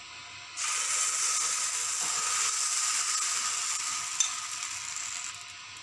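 Steady sizzling hiss from a hot dosa pan, starting suddenly about half a second in and stopping just before the end, with a single light click a little after four seconds.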